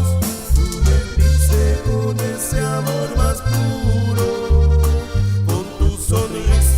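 A band playing an instrumental passage: accordion carrying the melody over electric bass and drums, with no singing.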